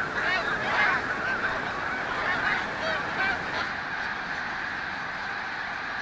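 A large flock of snow geese calling, many honks overlapping into a continuous din. The separate calls thin out after about three and a half seconds into a steadier blurred chorus.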